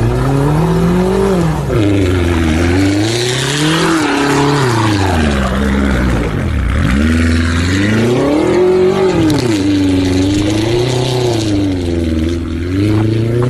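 A BMW SUV's engine revving up and down again and again as the car drifts through turns on snow, its pitch rising and falling every second or two.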